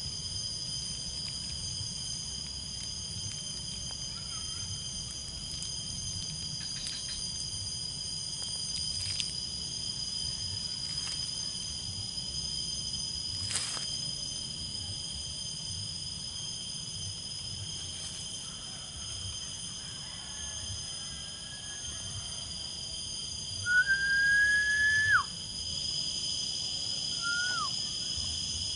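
Steady high-pitched drone of insects. About 24 seconds in, a clear whistled note rises and holds for about a second and a half, with a shorter whistle near the end.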